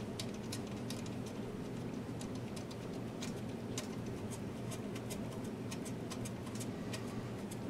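Light, irregular metallic clicks and ticks as a potentiometer and its small nut are handled and threaded on finger-tight against the aluminium amp chassis, over a steady low hum.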